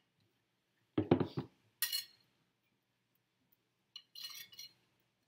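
Wire whisk knocking and clinking against a mixing bowl while flour and sugar are stirred together: a quick cluster of knocks about a second in, a sharper clink just before two seconds, and a softer scraping stroke around four seconds.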